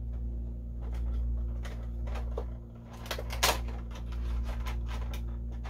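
Cardboard Funko Pop window box being handled as the figure is pulled out: scattered small clicks and taps, with one sharper snap about three and a half seconds in.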